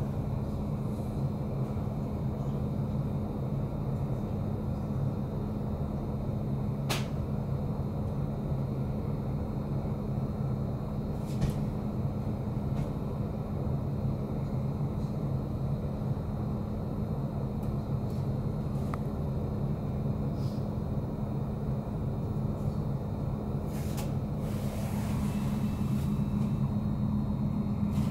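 Interior of a stationary Sm5 Stadler FLIRT electric commuter train: a steady low hum from its onboard equipment while it waits at the platform, with a few sharp clicks now and then. The hum grows a little louder near the end.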